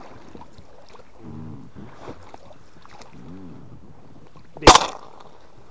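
A single shotgun shot about three-quarters of the way in, sharp and very loud, with a short echoing tail. Before it, only a low steady background.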